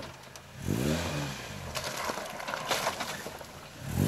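Suzuki off-road 4x4's engine revving under load as it crawls up a rutted dirt slope. The engine climbs in pitch about half a second in and falls away a second later, then rises again near the end, with scattered clicks and knocks throughout.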